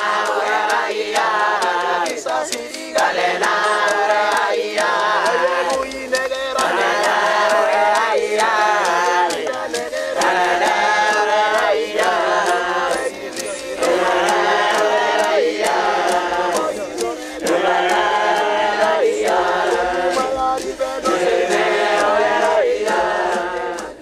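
A large group of men chanting together, in short phrases separated by brief breaks.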